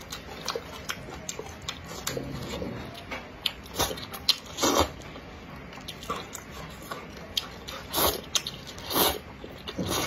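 Close-up eating sounds: wide noodles in chili oil being chewed and slurped, with many short wet mouth clicks and smacks. Longer slurps stand out about halfway through and twice near the end.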